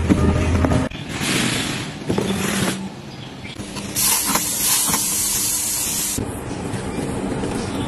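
Hand spray bottle misting water onto cut flowers. One hiss of spray runs from about a second in for nearly two seconds, and a stronger hiss comes about four seconds in and lasts some two seconds.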